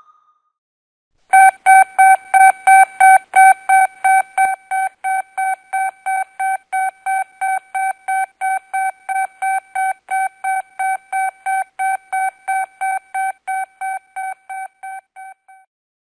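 Radar-scan beep sound effect: a single-pitched electronic beep repeating about three times a second, starting about a second in, loudest over the first couple of seconds and stopping just before the end.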